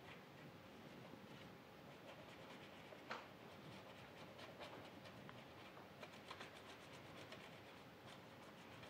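Near silence with faint dabs and light strokes of a fine paintbrush on a painting, including one slightly sharper tap about three seconds in.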